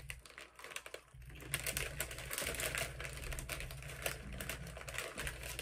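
Doritos tortilla chips crunching as they are chewed: a dense, irregular run of small crackles that starts about a second in.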